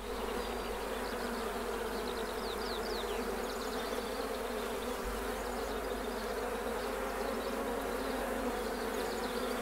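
Honey bee swarm buzzing: a steady, low drone of many bees together.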